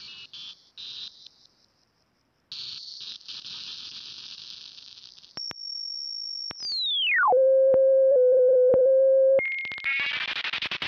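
S.709 stochastic synthesizer app on an iPad making electronic sounds: a crackly high hiss that cuts in and out, then a high steady whistle that dives into a loud low steady tone, and a harsh buzzing, pulsing texture near the end.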